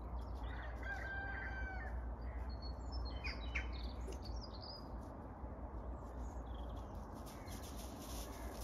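A rooster crows once, a held call of about a second starting near the beginning, followed by small birds chirping a little later, over a steady low rumble.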